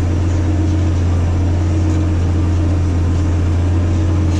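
Massey Ferguson 8210 tractor engine running at a steady pitch while pulling a disc harrow, a constant low drone.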